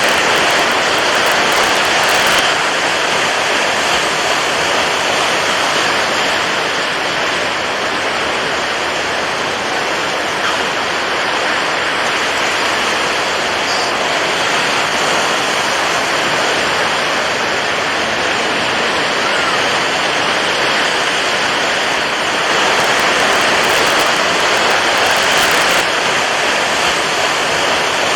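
Water waves rushing as a dense, steady wash of noise. It swells slightly at the start and again near the end.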